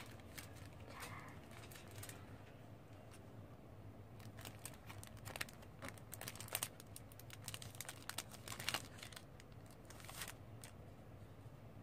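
Clear plastic packaging film crinkling and crackling as it is handled and unwrapped, in irregular bursts with the sharpest crackles a little past the middle.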